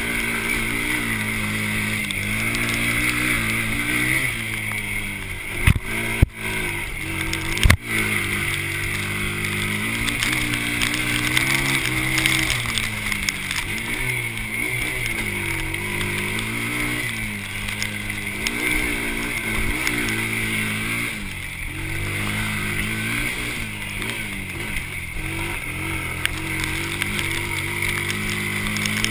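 Honda TRX90 Sportrax 90 quad's small four-stroke single-cylinder engine running under a rider, its pitch rising and falling as the throttle is worked, with a steady hiss over it. A few sharp knocks stand out about six to eight seconds in.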